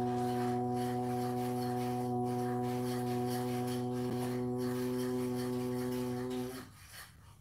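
A man chanting a long, steady Om at a low pitch, the hum held unbroken with a slight waver about four seconds in, then ending about six and a half seconds in.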